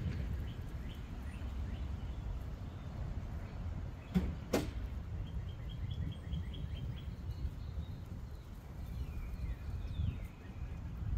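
Low, uneven rumble of a Chevrolet Trailblazer's exhaust at idle, heard at the tailpipe. Two sharp clicks come about four seconds in, and birds chirp in quick series later on.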